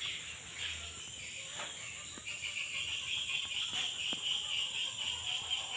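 A chorus of insects chirring steadily, growing louder about two seconds in.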